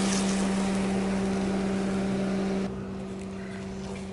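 A steady low mechanical hum under an even hiss. About two and a half seconds in, the hiss drops away and the hum carries on more quietly.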